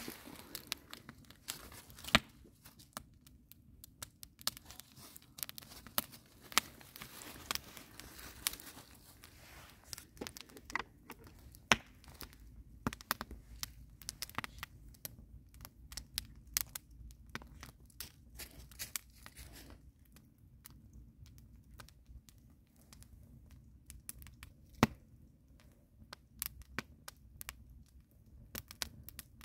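Wood fire crackling: a constant scatter of small irregular pops and snaps from burning logs, with two sharper, louder pops, one about two seconds in and one a few seconds before the end.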